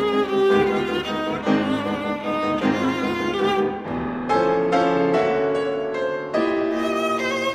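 A viola and a piano playing 20th-century chamber music together: a sustained bowed viola line over piano accompaniment. In the second half the notes change in even steps of about three a second.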